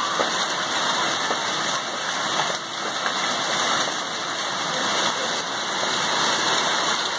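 Hailstorm: hailstones and heavy rain pelting down in a dense, steady patter, with small sharp ticks of stones striking leaves, plant pots and paving.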